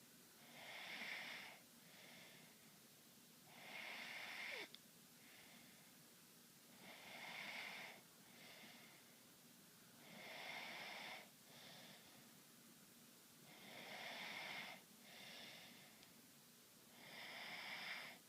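Someone snoring slowly and regularly: six breathy snores on the breath in, each about a second long and followed by a shorter, softer breath out, coming about every three and a half seconds.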